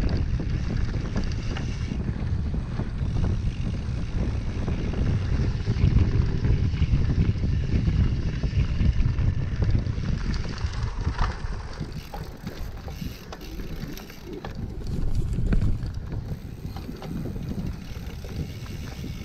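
Wind buffeting the microphone of a rider's camera on a cyclocross bike, over the rumble of the tyres rolling on a dirt trail and small rattling clicks from the bike. The wind rumble eases about halfway through.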